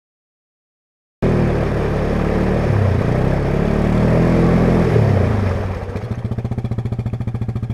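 Yamaha Grizzly ATV's single-cylinder engine revving up and down as it is run while stuck in deep mud, cutting in suddenly about a second in. About six seconds in it drops back to a steady, evenly pulsing idle.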